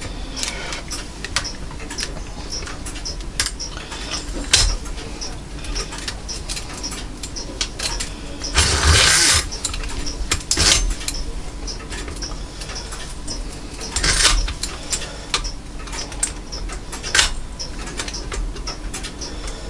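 Screwdriver clicking and scraping against the brass of an antique grandfather clock movement as the old gut line is prised off the barrels, with a louder rasp of about a second near the middle and another a few seconds later.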